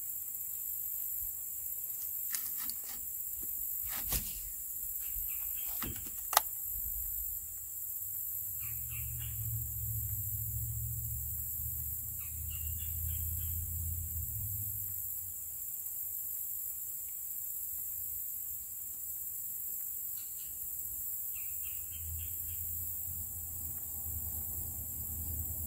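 Outdoor ambience on the water: a steady high hiss with a few faint bird chirps. Several sharp clicks and knocks come in the first seven seconds, the loudest about six seconds in, and a low rumble rises and fades twice.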